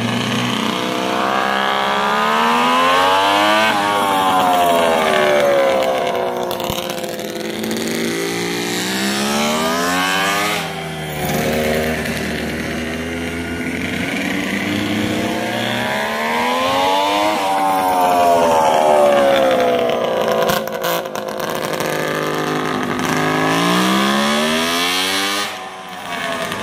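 Kawasaki two-stroke triple engine in a KV75 minibike being ridden hard, revving up and easing off again and again, its pitch climbing and falling with each run.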